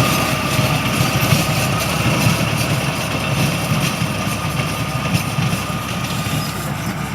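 Harvesting machinery's engine running steadily, with a faint steady whine above the rumble. The sound eases slightly toward the end.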